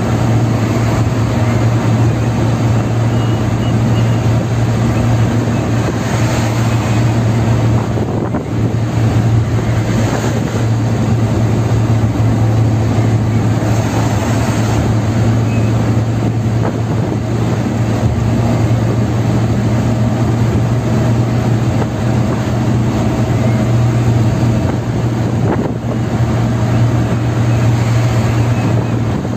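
Inside a moving car on an expressway: a steady drone of engine and tyre noise with a strong, constant low hum.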